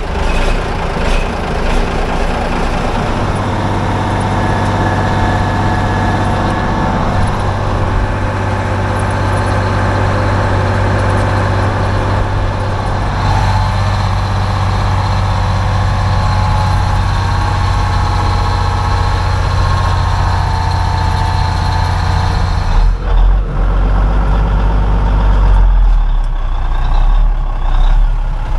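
Grain truck's engine running steadily at idle just after being started, then pulling harder with a deeper rumble for the last few seconds as the truck is driven off.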